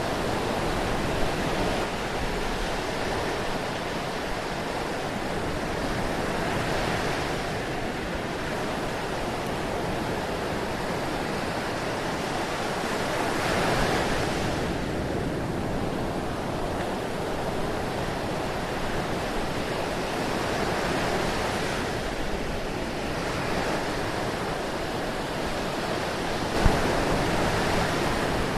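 Ocean surf: a continuous wash of waves, swelling as a wave breaks about every six to seven seconds.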